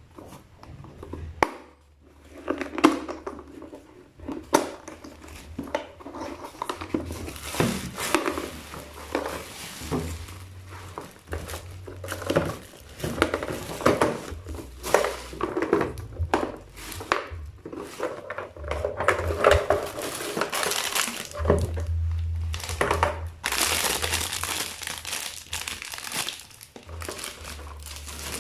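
Packaging crinkling and rustling as it is handled during unboxing, with irregular clicks and small knocks throughout and louder crinkling stretches partway through and near the end.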